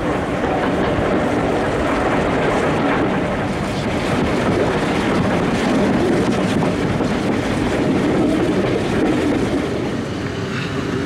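Steady running noise of a steam-hauled passenger train, heard from a carriage window: coach wheels rumbling and clicking over the rails as LMS Black Five 45305 climbs the branch. The noise eases slightly near the end.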